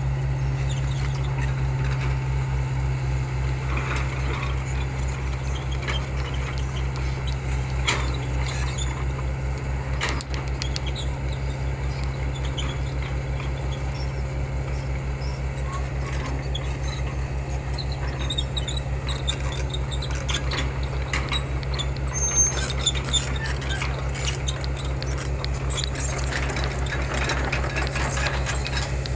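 Heavy earthmoving machine's diesel engine running at a steady speed, with scattered sharp clicks and knocks of metal that come more often in the last several seconds.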